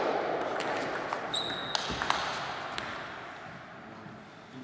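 Table tennis ball clicking as it bounces a few times at uneven intervals, echoing in a large sports hall. A brief high squeak comes about a second and a half in.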